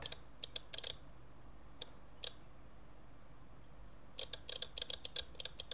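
Soviet SB-1M/50 electromechanical impulse counter ticking as 12-volt pulses step its solenoid, one tick per counted impulse. A few separate ticks come in the first couple of seconds, then a pause, then a quick run of ticks from about four seconds in.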